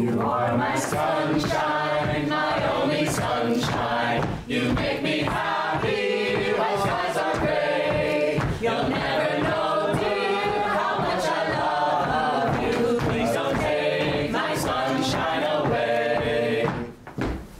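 A group of voices singing a tune together as a chorus, which stops about a second before the end.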